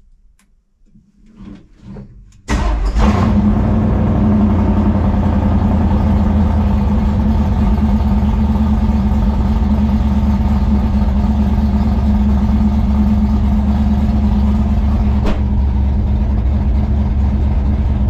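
Stroked small-block Chevy V8 in a C10 race truck starting up about two and a half seconds in: it catches suddenly and settles straight into a loud, steady idle, heard from inside the cab. It is running on shorty exhaust pipes with turnouts.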